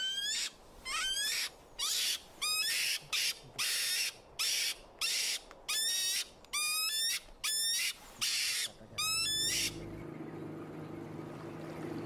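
European mink squealing and hissing in protest as it is handled: a string of sharp squeals rising steeply in pitch, each paired with a harsh hiss, about one a second, stopping abruptly near the end. A low steady hum follows.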